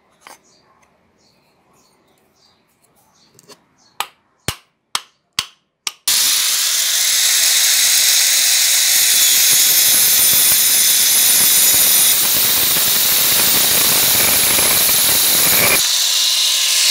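Five sharp knocks about half a second apart, then an angle grinder with a cutting disc cuts through the end of a wooden hammer handle that sticks out through the head: a loud, steady grinding that comes in abruptly and eases a little near the end.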